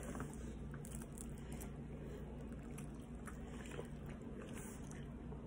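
Faint chewing of pizza with a few soft mouth clicks, over a steady low hum.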